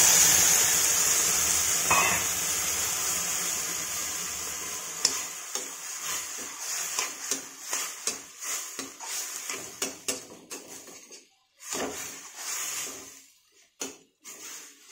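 Water poured into a hot metal kadhai of frying ground dal sets off a loud sizzle that dies away over the first five seconds or so. After that a slotted metal spatula scrapes and clinks against the pan as the mixture is stirred.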